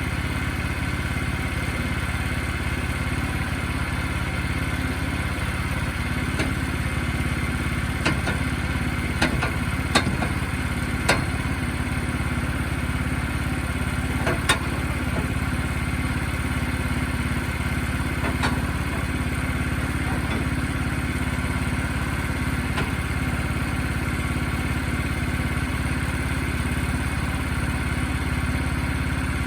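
Sawmill engine running steadily, with a handful of sharp knocks and clacks between about eight and fifteen seconds in.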